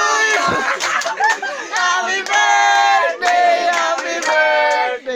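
A group of young men yelling and chanting together in long, drawn-out shouts, several voices at once.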